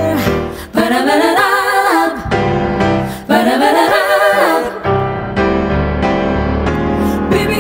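Layered female voices singing in close harmony: two rising wordless runs, then a held chord with piano.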